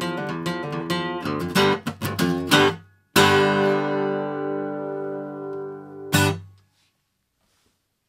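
Background music: acoustic guitar strumming in a quick rhythm, then a chord struck about three seconds in and left to ring and fade, and one last short strum near the end.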